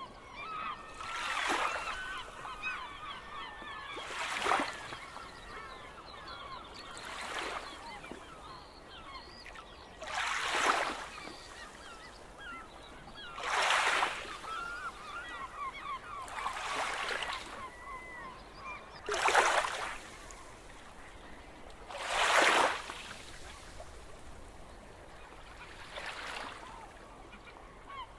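Seagulls calling over waves washing in on the shore, a wave swelling and falling back about every three seconds.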